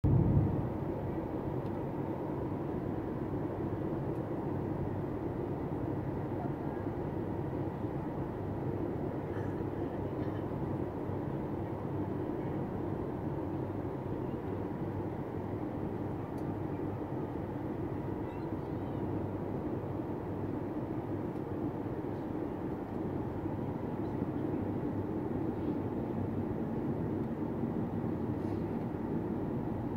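Steady cabin noise of a Boeing 737 MAX 8 in flight, heard from a window seat beside its CFM LEAP-1B engine: an even rumble of engine and airflow with most of its weight low and no change in level, during the descent toward landing. A brief louder bump comes right at the start.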